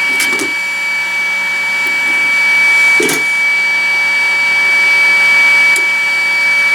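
Hot air rework blower running with a steady noise and a high whine while the solder under a BGA socket is heated, with two light knocks, one at the start and one about three seconds in.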